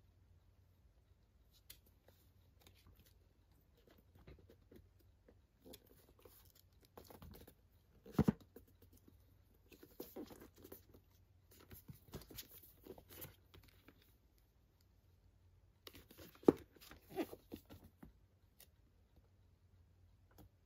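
Faint handling of boxed packaging: a cardboard slipcover and a metal steelbook tin shifting and scraping in the hands, in a string of short rustles and scrapes with two sharper knocks, one about a third of the way in and one about three quarters through.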